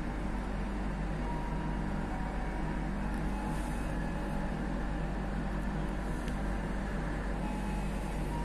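Steady running noise of the KA Kaligung passenger train heard from its rear end: a constant low rumble with a steady hum, and no distinct rail-joint clicks.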